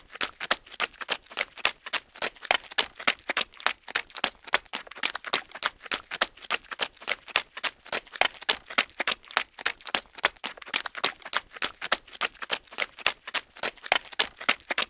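Running footsteps in mud: an even run of quick steps at about three or four a second.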